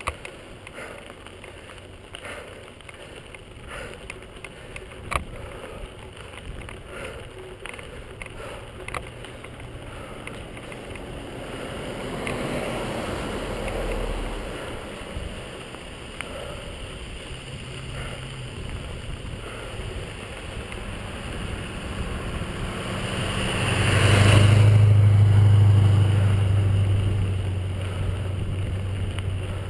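Bicycle rolling over a gravelly road shoulder, with small clicks and knocks, as motor vehicles pass on the road beside it: one partway through with a falling pitch, and a louder one near the end whose low engine hum lingers.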